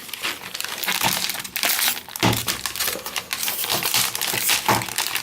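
Protective plastic wrap crinkling and crackling as it is handled and pulled off a keyboard.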